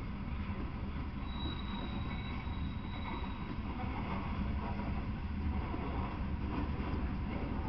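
Freight train of covered hopper cars rolling past, a steady rumble of wheels on the rails, with a faint high wheel squeal for a couple of seconds early in the pass.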